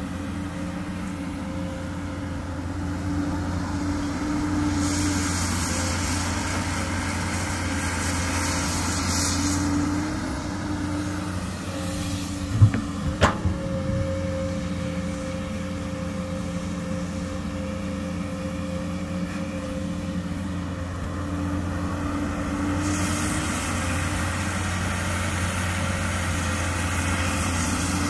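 Komatsu PC200 excavator's diesel engine running steadily, working harder twice with a rise in level and an added hiss, and a few sharp knocks about halfway through.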